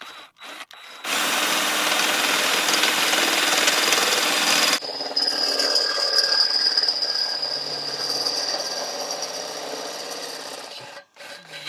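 Electric drill boring a bolt hole through a wheelbarrow handle. A loud, rough cutting run of about four seconds drops abruptly to a lighter, steady whine, which slowly fades and stops near the end.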